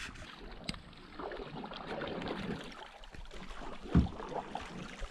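Canoe being paddled: paddle strokes dipping and splashing in calm water, with a low wind rumble on the microphone. A single sharp knock about four seconds in.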